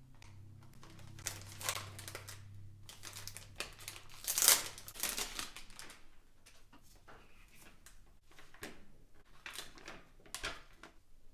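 Crinkling and crackling of a Pokémon TCG Evolving Skies booster pack's foil wrapper being handled and torn open, in irregular bursts with the loudest crackle about four and a half seconds in.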